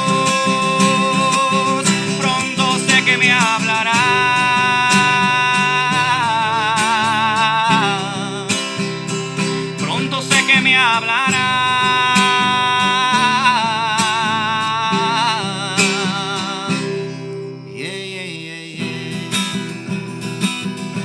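Acoustic guitar accompaniment with a voice singing long held notes with vibrato, twice. Near the end the voice stops and the guitar strums on alone.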